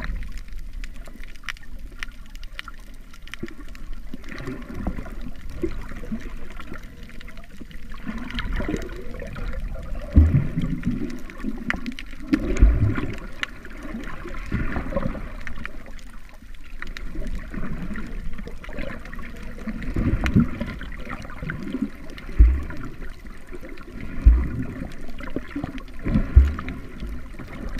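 Muffled underwater gurgling and sloshing heard through a submerged camera, with several dull low thumps in the second half.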